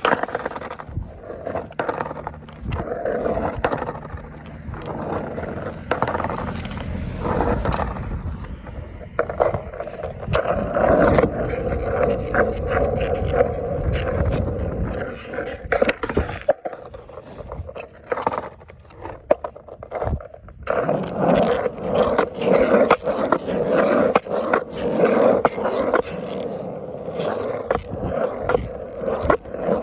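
Skateboard rolling on pavement, the wheels running with a steady hum broken by scrapes and sharp knocks as the board is pivoted and set down during trick attempts.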